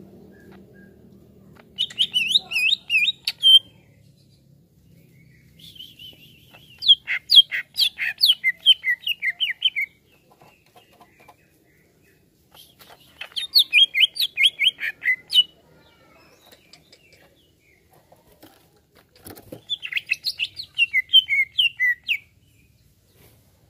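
Greater green leafbird (cucak ijo) singing in four bursts of quick chirping notes, each burst stepping down in pitch, with quiet gaps between them. A short knock comes just before the last burst.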